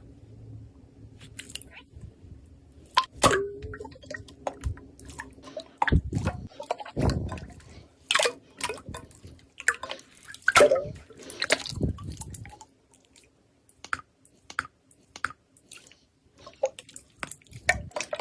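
Slime being squeezed and poked: wet, sticky clicks and pops at uneven intervals, with a couple of dull low squelches about six and seven seconds in.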